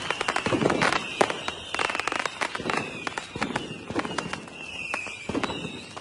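Fireworks display: a dense run of bangs and crackling from bursting shells, with a high whistle-like tone falling in pitch over and over.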